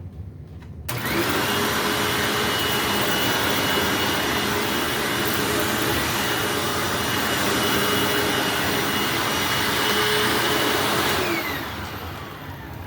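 Hoover WindTunnel bagged upright vacuum cleaner switched on about a second in and running steadily with a high whine. It is switched off near the end, and the motor spins down with a falling whine.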